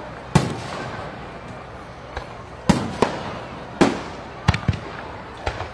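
Fireworks going off: a string of sharp bangs at uneven intervals, about eight in all, with crackling between them.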